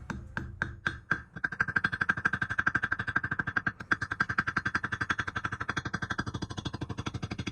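Rapid hammering on a rivet in a steel breastplate: a few single blows, then a fast even run of about ten strikes a second, the steel plate ringing with each blow. The rivet is being set and its head formed.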